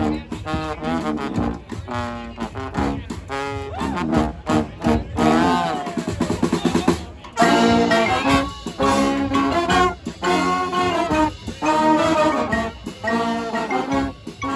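Brass band playing live: trombone, trumpet and saxophone over drums. About seven seconds in, the whole band comes in louder with short punchy ensemble notes.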